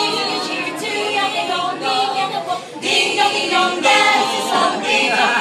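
Choir singing a Christmas carol, many voices together.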